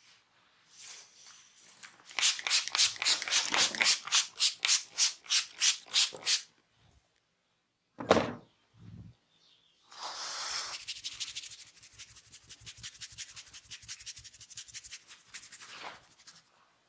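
Hands rubbing and scratching during a massage: a run of even strokes at about four a second, then after a pause a single sharp thump, then fast, steady rubbing.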